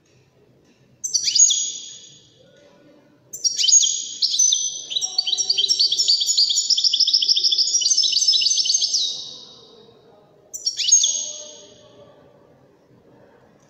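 Caged European goldfinch singing: a short call about a second in, then a long twittering phrase of fast repeated high notes lasting about six seconds, and another short call near the end.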